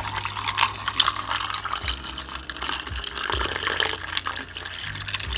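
Iced tea poured from a can into a cup, a steady splashing pour with crackling, over low bass notes of background music.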